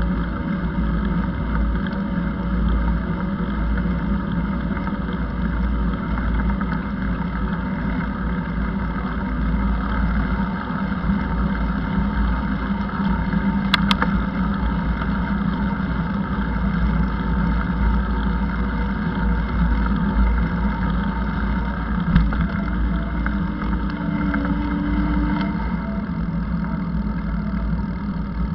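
Steady motor drone with wind rumbling on the microphone while moving along, and a single sharp click about halfway through.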